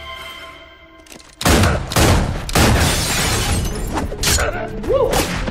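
A film gunfight soundtrack. Quiet tense music fades down, then about a second and a half in a sudden volley of revolver gunshots breaks out and keeps going: many loud shots and impacts in quick succession.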